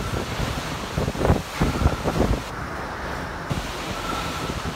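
Hurricane winds gusting around the building: a steady rushing noise with irregular low thumps and rumbles, and a faint thin whistle near the end.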